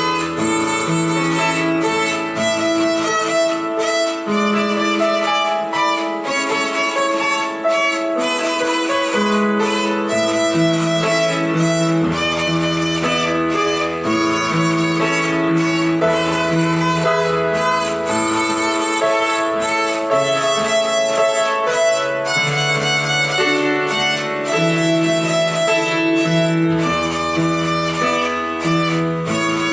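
Violin playing a simple melody of held, bowed notes over a lower accompaniment of long bass notes.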